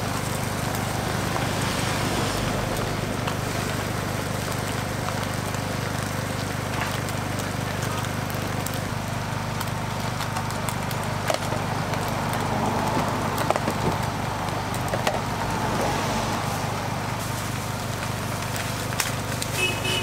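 Beaten egg sizzling on a flat-top street-food griddle over a steady low hum, with a few light clicks of a metal spoon against the griddle partway through.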